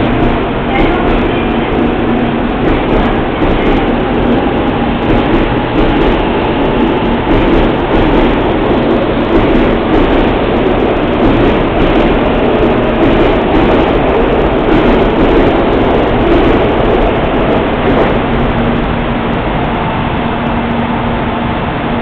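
A Shinkansen 300 series train departing and running past a station platform as it picks up speed: a loud, steady rumble of wheels on rails with the whine of its traction motors.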